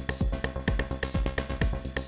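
Electronic dance music from a live DJ set: a steady, driving kick-drum beat with offbeat hi-hat ticks and cymbal hiss over sustained synth tones.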